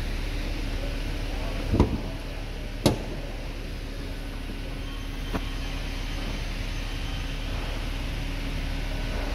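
Two sharp clunks about a second apart, the Mercedes GLC300's hood latch letting go and the hood being raised, then a lighter click, over a steady mechanical hum.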